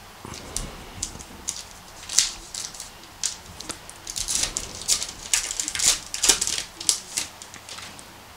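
Foil wrapper of a Topps Heritage baseball card pack being torn open by hand: irregular crinkling and tearing, busiest from about two to seven seconds in.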